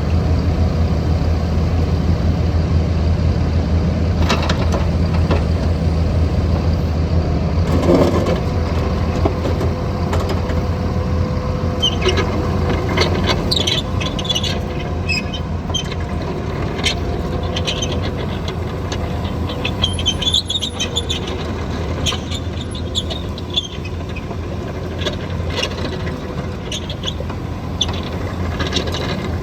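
Caterpillar 305.5D mini excavator's diesel engine running steadily. About eight seconds in there is a surge, followed by a steady whine. From about twelve seconds on, many sharp squeaks and clicks of metal parts working are heard.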